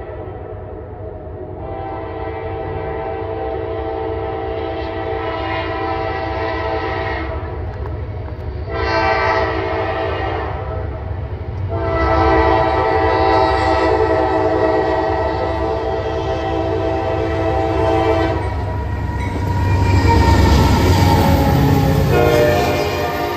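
Norfolk Southern AC44C6M diesel locomotive's air horn sounding three blasts, the first and last long and the middle one shorter, the grade-crossing warning, over the engine's low rumble. Near the end the locomotive passes close by and the engine and wheel noise swells to its loudest.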